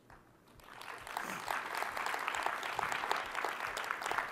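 Conference audience applauding, swelling up within the first second and starting to fade near the end.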